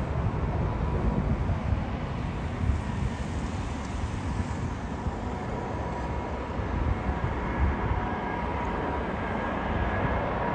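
Airbus A380-800 on final approach, its four Engine Alliance GP7200 turbofans making a steady jet rumble as the aircraft nears. A thin whining tone in the engine noise grows stronger over the second half.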